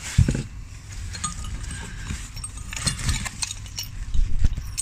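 Parts being handled in a cardboard box: plastic wrapping rustling, with irregular knocks and light metal clinks, the loudest knock just after the start.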